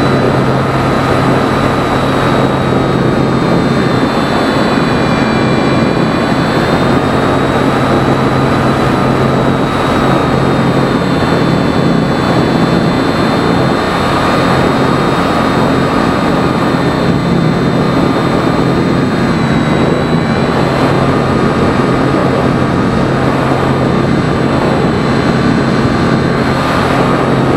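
Electric motor and propeller of a Phoenix 2000 RC motor glider whining steadily, its pitch wavering slightly, heard from a camera on board the plane with loud wind rush over the microphone.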